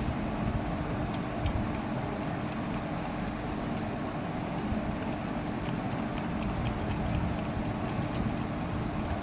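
Wire whisk beating a thick mayonnaise and cream mixture in a glass bowl, with scattered faint clinks of the wires against the glass, over a steady background hum.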